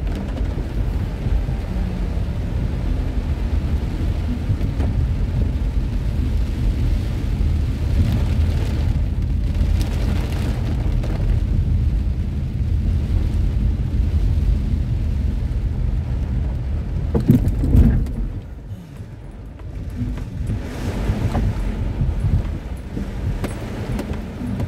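Heavy rain drumming on a car's roof and windscreen, heard from inside the cabin over the steady low rumble of the moving car. About three-quarters of the way through there is a short louder swell, then the noise drops for a couple of seconds before building again.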